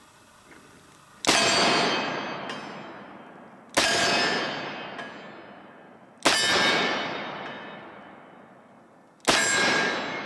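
Four shots from a Smith & Wesson 629 .44 Magnum revolver, fired at a slow, steady pace about two and a half seconds apart, each with a long echoing decay.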